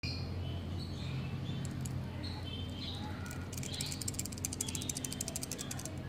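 A failed refrigerator start relay being shaken by hand, its broken insides rattling in a fast run of dry clicks. The rattle starts about a second and a half in and grows denser toward the end. This rattle is the sign that the relay has gone bad. Short high chirps and a steady low hum sit in the background.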